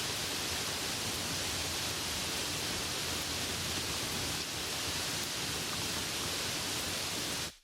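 Steady hiss of falling rain, an even wash of noise with no distinct drops heard, that cuts off abruptly near the end.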